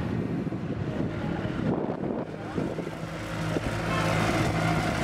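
Busy street noise with traffic, and a steady engine-like hum that comes in about three seconds in and gets a little louder.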